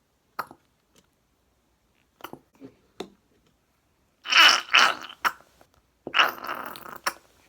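Clear glue squeezed out of a plastic squeeze container, sputtering and squelching as air spurts out with it, in two loud stretches after a few light clicks of the container being handled.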